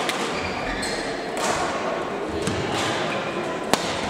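Echoing badminton hall: a murmur of distant voices with sharp knocks of rackets striking shuttlecocks on the courts, the loudest about three and a half seconds in.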